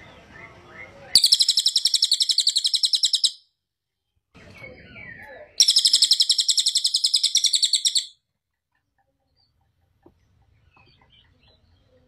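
Crested jay (cililin) giving two loud, rapid rattling calls of about two seconds each, each preceded by a few softer chattering notes.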